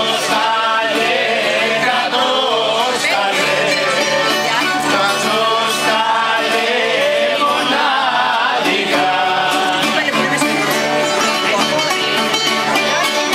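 Live Greek folk music: an accordion and a guitar playing together, with men singing along.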